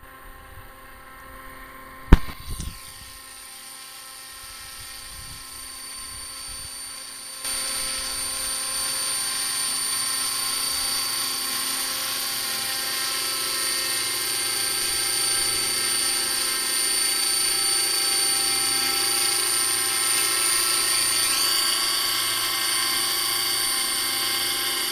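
Radio-controlled scale model Hughes 500E helicopter running on the ground, its motor and rotor blades giving a steady high whine that grows louder, with a sharp step up in loudness about seven seconds in. A single sharp click about two seconds in.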